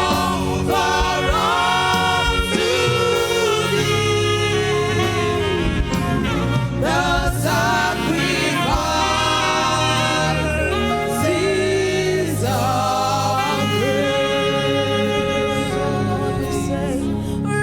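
Live gospel praise and worship music: singers with a band, sung melody lines over a steady low beat.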